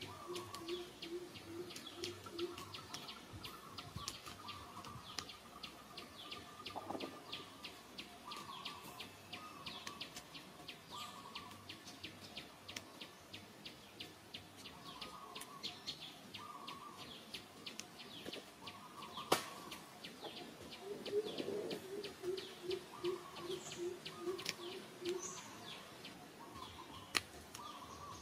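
Birds calling outdoors. A low hooting note repeats quickly in a run of several notes at the start and again about three-quarters of the way in. Scattered higher chirps and many short sharp ticks sound over it.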